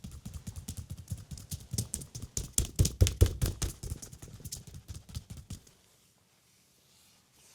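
Massage percussion: hands striking the leg in a quick run of taps, several a second, loudest in the middle, stopping abruptly near the end.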